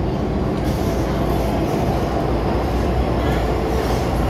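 Steady low rumble inside an MTR M-Train metro car, with voices in the background.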